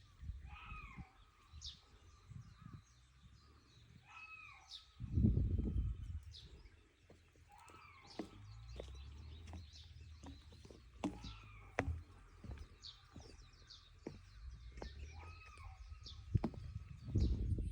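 Reeves's muntjac (kyon) giving short, hooked barking calls over and over, about every four seconds, with small birds chirping. Low rumbles rise briefly twice.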